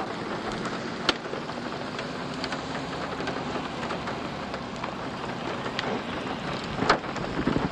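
Steady rain falling on a car, with a few sharp ticks about a second in and near the end.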